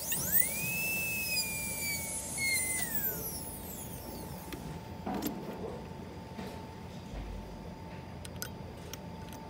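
High-speed dental handpiece whining as its bur smooths the abutment preparation on a model tooth. The whine rises at the start, holds, then winds down about three seconds in, followed by only faint light clicks.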